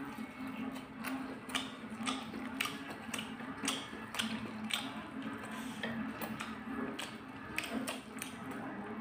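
Close-up eating sounds of someone chewing fried omelette and instant noodles: irregular wet clicks and smacks from the mouth, several a second, over a low steady hum.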